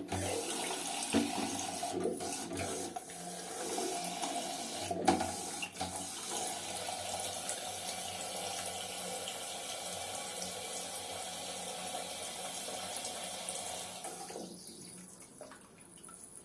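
Water running through a newly fitted toilet fill valve into the cistern as it refills, a steady rushing with a few knocks from the float being adjusted; the flow sound dies down about fourteen seconds in.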